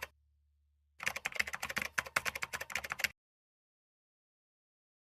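Rapid clicking of computer-keyboard typing, starting about a second in and cutting off abruptly about three seconds in.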